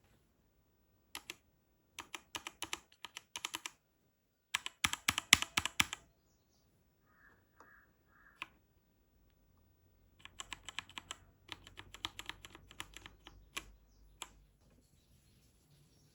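Keys being pressed on a Redragon mechanical keyboard: quick runs of clicky keystrokes in several bursts, with pauses between, the longest run coming after a gap about ten seconds in.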